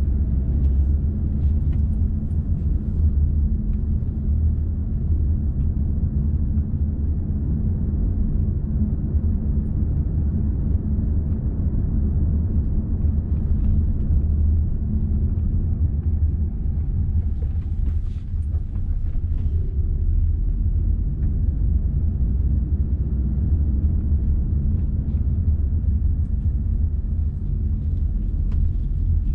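Steady low rumble of a car driving along: engine and road noise.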